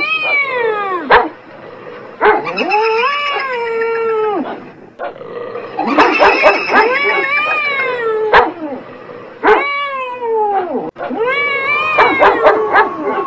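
Cats caterwauling: repeated long yowls that rise and then fall in pitch, with short, sharp dog barks between them.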